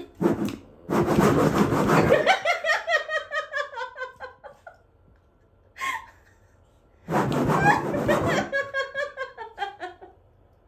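A woman laughing in two bouts, about a second in and again around seven seconds. Each bout starts with a loud burst of laughter and trails off into quick, fading "ha-ha" pulses.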